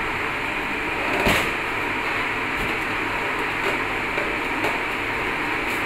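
Steady machine hum and hiss, with one short knock about a second in.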